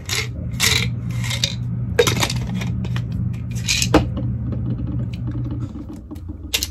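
Tablets rattling in a plastic supplement bottle in short shakes as one is tipped out, over a low steady hum that stops near the end.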